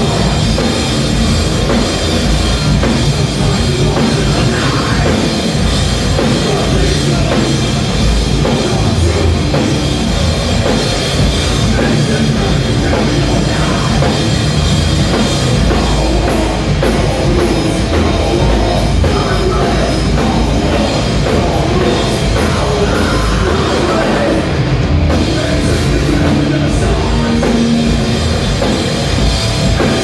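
Thrash metal band playing live and loud: distorted electric guitars, bass guitar and a drum kit going steadily without a break.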